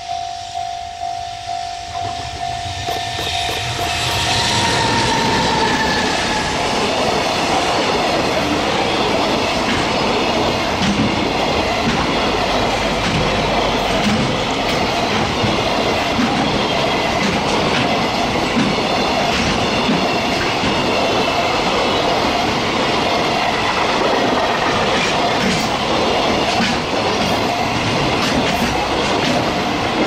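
Japanese level-crossing bell ringing in a steady, rapid ding-ding, then a JR Freight container train hauled by an electric locomotive passes close by about three seconds in, loud and continuous. Its wagon wheels clatter over the rail joints and drown out the bell, which is heard again at the very end as the train clears.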